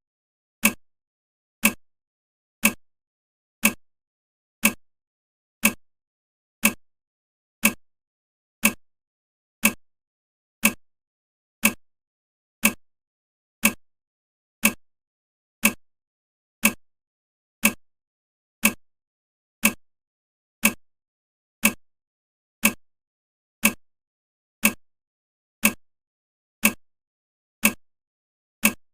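Countdown timer ticking, one short sharp click every second: the countdown still running, not yet the alarm.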